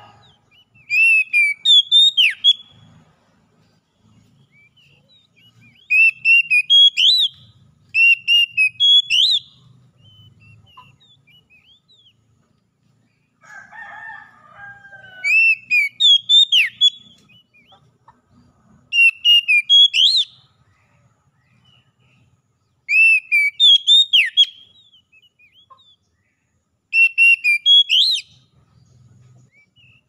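Oriental magpie-robin (kacer) singing: seven short phrases of loud, clear notes sliding up and down, a few seconds apart. A lower, rougher call sounds once about halfway through.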